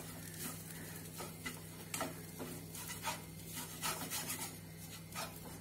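A spatula stirs and scrapes chicken masala filling in a frying pan, making an irregular run of soft scrapes and clicks, about two a second. A steady low hum runs underneath.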